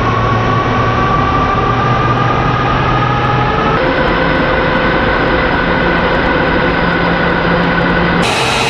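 Jet fighter engine running on the ground: a steady loud rush with a low hum and a high whine that rises slowly. The sound shifts abruptly about four seconds in and again near the end.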